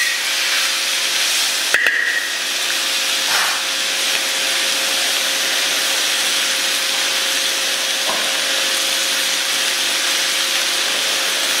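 Fish and vegetable stir-fry sizzling steadily in a hot steel wok, with a metal spatula clinking against the wok once about two seconds in.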